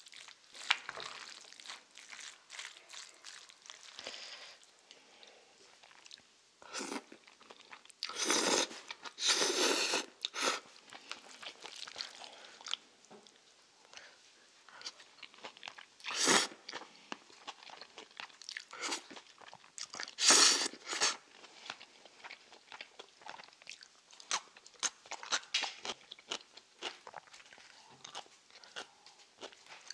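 Wooden chopsticks stirring and lifting jjajangmyeon noodles in thick black-bean sauce in a plastic takeout bowl: sticky, wet mixing sounds and small clicks, with a few louder bursts of mixing, the longest about eight seconds in.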